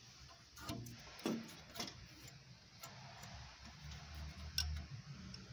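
A handful of scattered light clicks and taps as hands handle parts around the open carburettor mounting flange of an air-cooled VW 1300 engine, over a faint low hum.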